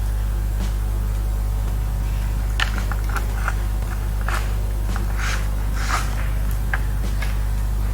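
Small clicks and scrapes of screws and a screwdriver being handled on a laptop's plastic chassis while a touchpad is screwed down, with a steady low hum underneath. The clicks are scattered and irregular and start a couple of seconds in.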